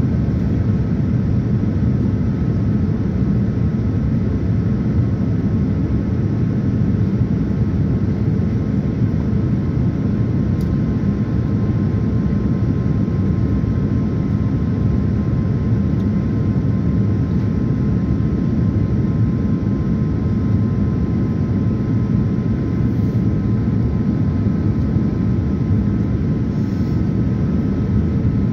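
Steady cabin noise inside a Boeing 787-9 airliner on its approach: a low, even rush of engine and airflow noise with a faint steady whine above it.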